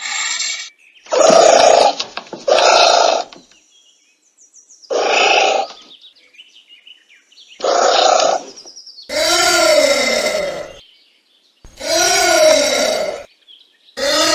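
Anteater calls: a series of short, hoarse pitched cries every one to three seconds, then three longer calls near the end whose pitch rises and then falls.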